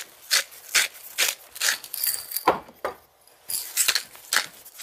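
Hand-twisted pepper mill grinding pepper: a steady run of short, gritty crunching strokes, about two a second, with a brief pause a little past the middle.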